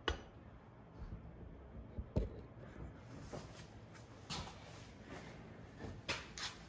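Quiet room tone broken by a few short clicks and knocks, the loudest at the very start and about two seconds in, with fainter ones later.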